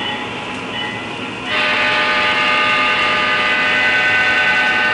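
HO-scale DCC sound-equipped diesel locomotive sounding its horn: one long blast of several tones together, starting about a second and a half in and cutting off near the end, over the steady running sound of the model locomotives.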